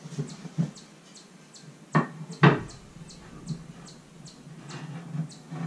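A vanity-top backsplash piece is set down on the countertop and pressed against the wall: a few soft handling thumps, then two sharp knocks about two and two and a half seconds in, and a lighter bump near the end.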